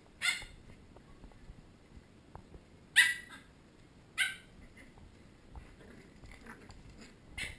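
Pembroke Welsh corgi puppies giving short, high-pitched yips while play-wrestling: four quick barks, the loudest about three seconds in.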